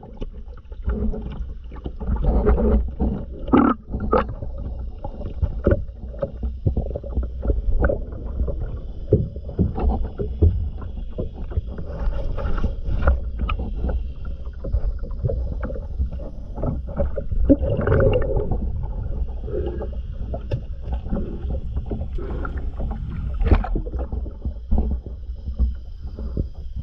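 Underwater sound around a scuba diver working along a boat's hull: regulator exhaust bubbles bursting out about every five seconds over a steady low rumble and constant crackling clicks.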